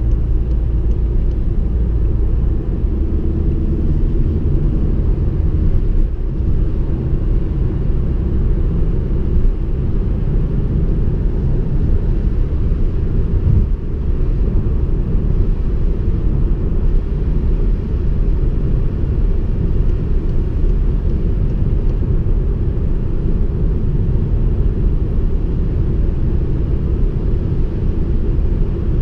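Steady low rumble of a 2016 VW Passat B8 on the move, heard from inside the cabin: its 2.0 TSI turbocharged four-cylinder engine and the tyres on the road, with no revving or gear changes standing out.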